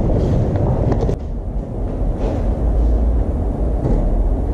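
Steady low rumbling noise, heaviest in the bass, with an abrupt break about a second in.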